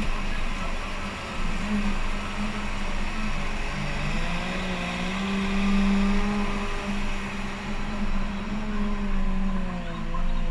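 Cat 930K wheel loader's diesel engine and hydraulics working as it digs in, lifts a full 3.5-yard bucket of sand and backs away. About four seconds in the engine revs up with a rising whine, holds, and eases off near the end.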